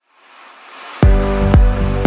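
Electronic dance music: a swelling riser for about a second, then a heavy kick drum about twice a second comes in with the full beat.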